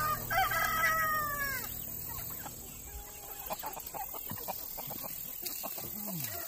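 A rooster crows once, a long call of about a second and a half that falls away at the end, followed by scattered soft clucking from chickens.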